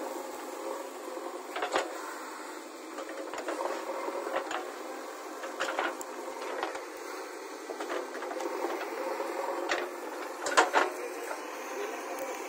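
JCB 3DX backhoe loader's diesel engine running as the backhoe digs, with scattered sharp knocks and clanks from the bucket and soil, the loudest about ten and a half seconds in.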